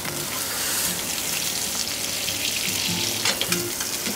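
Sea bream skin sizzling and crackling in melted butter in an aluminium frying pan, being fried slowly until crisp.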